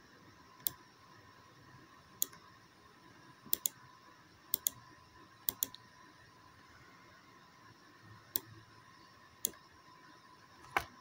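Computer mouse clicking: about eleven sharp, separate clicks, several in quick pairs like double-clicks, over a faint steady hum.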